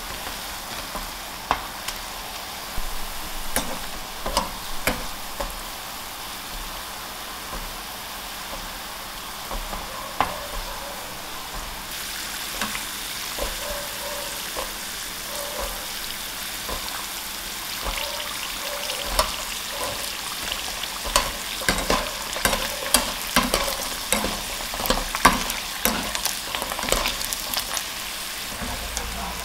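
Small balls of potato dough deep-frying in a saucepan of oil, sizzling steadily with many sharp crackles and pops, while a wire mesh skimmer stirs them. The crackling grows busier and louder past the middle.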